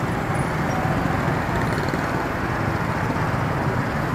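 Steady street traffic noise, with a low hum from vehicle engines running.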